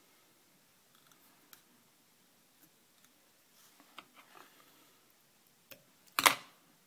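Hand work at a fly-tying vise: faint scattered ticks and small clicks as thread and materials are handled, then one short, sharp, loud clack about six seconds in.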